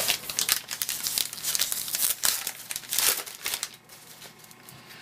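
Plastic wrapper of a baseball card pack being torn open and crinkled in the hands, a quick run of crackles and rustles that dies down near the end.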